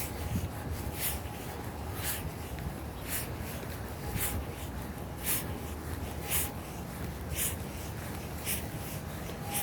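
Footsteps on a walking path, a short crunching scuff about once a second at an even pace, over a low steady rumble.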